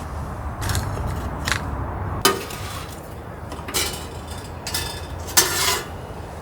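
Utensils and cookware handled while preparing food: a series of short clacks and scrapes about a second apart, over a steady low rumble.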